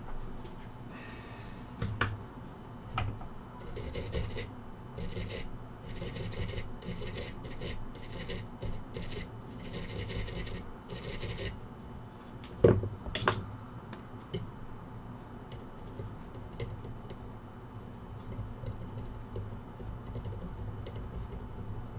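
Short scrubbing strokes on a circuit board, cleaning it with alcohol, in runs, with a few small clicks and knocks of tools on the bench. The loudest are two sharp knocks about thirteen seconds in.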